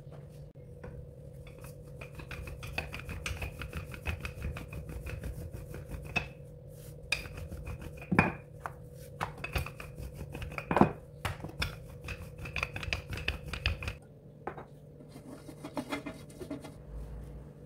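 Wooden rolling pin rolling out pizza dough on a countertop: a run of small clicks and knocks, with two louder knocks, over a steady low hum. Near the end, quieter handling as a silicone brush spreads oil in a baking pan.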